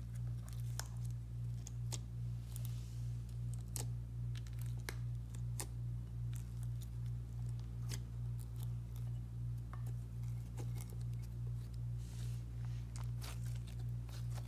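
Clear slime with crumbled eyeshadow and glitter being squeezed and kneaded by hand, giving scattered small sticky clicks and pops. Under them is a steady low hum that pulses evenly a few times a second.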